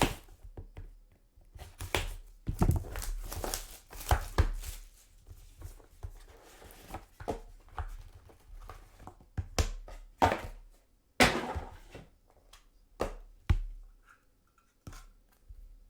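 A trading card box being opened and its contents handled: crinkling and tearing of wrapping with irregular knocks and taps.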